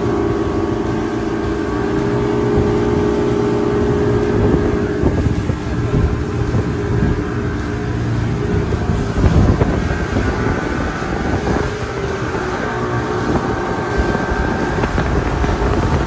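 Twin Yamaha 200 outboard motors driving a speedboat at full speed, a steady engine drone mixed with rushing water and wind buffeting the microphone. The engine tone is clearest in the first few seconds, then the wind and water noise take over.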